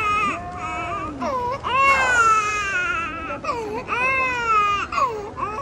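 A young child crying: a few long, high-pitched wails, the longest about two seconds near the middle.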